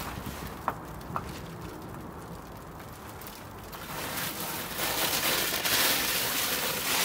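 Rustling and crackling of foil-faced reflective insulation being handled and stuck down, getting louder over the last few seconds, with two short clicks about a second in.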